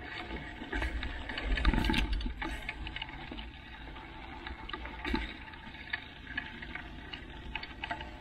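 Mountain bike ridden over dry, rutted sand: wind buffeting the microphone and tyre rumble, with scattered clicks and rattles from the bike. The buffeting is heaviest about two seconds in.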